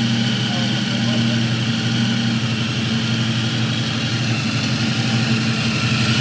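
Supercharged Chrysler 440 big-block V8 in a Dodge Charger R/T idling steadily, its freshly built engine on its first start. The idle is an even, low-pitched drone.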